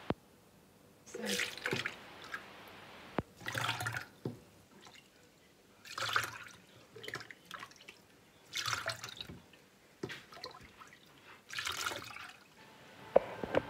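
Homemade fermented lemonade ladled through a metal mesh strainer into a plastic jug: five separate splashing pours, about one every two and a half seconds, with a few sharp clicks in between.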